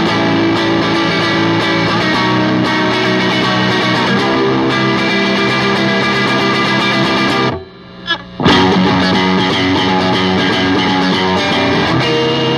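Telecaster electric guitar played through an amplifier: a rock chord riff that climbs up the neck. It breaks off briefly a little past halfway, then resumes and ends on a strummed ninth chord.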